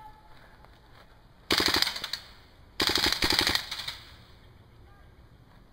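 Airsoft gun firing on full auto: two short bursts of rapid shots, the first about a second and a half in and the second about a second later.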